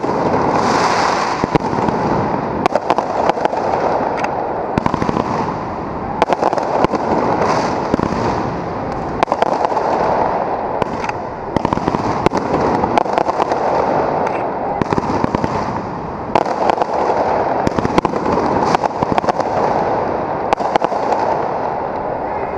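Aerial fireworks bursting in quick succession: a continuous dense crackle with many sharp bangs, several a second at times, from shells and crackling stars.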